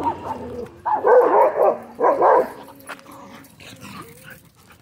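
A dog barking during play, with two loud barks about one and two seconds in, then quieter.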